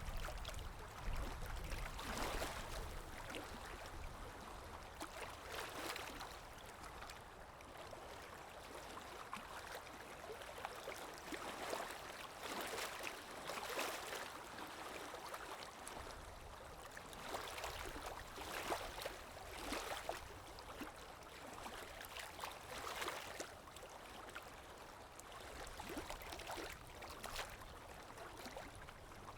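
Calm small waves lapping and washing at the shore, a continuous soft wash that swells and fades every second or two.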